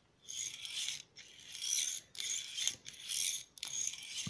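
Hand-held spiral push drill (PCB hand drill) worked in the air: each press down the twisted shaft spins the chuck and bit with a short high-pitched whir, about five strokes at an even rhythm.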